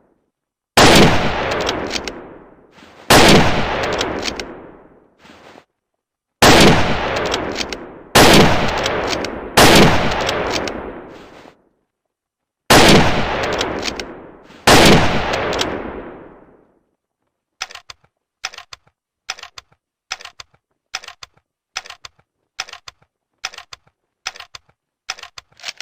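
Lee Enfield No.4 Mk1 .303 bolt-action rifle fired seven times, shots one and a half to three seconds apart, each with a long echoing tail. After the last shot comes a run of about a dozen short, sharp clicks, less than a second apart.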